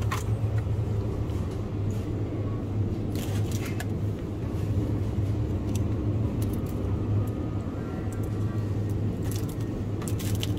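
Shop ambience: a steady low hum, as from refrigerated display cases, with a few short clicks and rustles of drink cans and packaging being handled.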